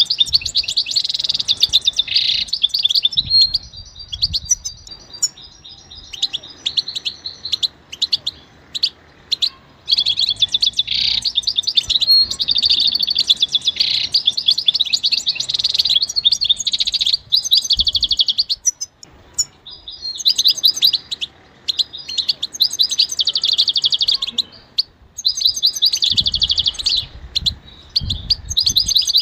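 European goldfinch singing: long phrases of fast, high twittering and trills, broken by short pauses.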